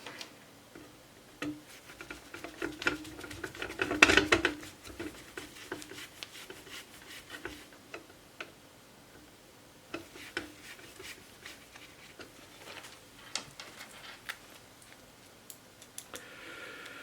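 Small screws being driven in with a screwdriver to fasten an SSD drive bay inside a desktop PC's metal case: irregular light clicks and metal rubbing, with a louder clatter about four seconds in.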